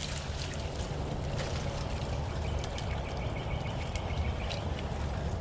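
Strong wind buffeting the microphone as a steady low rumble, with faint scattered clicks and rustles.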